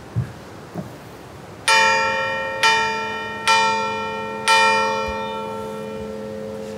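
Bronze church bell tuned to A, cast by Rüetschi in 1898, struck by hand with a hammer four times, about once a second, starting nearly two seconds in. Each stroke rings out with a low hum and many overtones that die away slowly and overlap the next.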